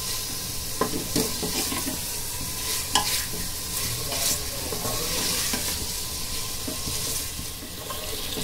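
Mutton pieces sizzling as they fry in ghee and oil, with no water added, in an open pressure cooker. A spatula stirs them, scraping and clicking against the metal pot now and then over a steady hiss.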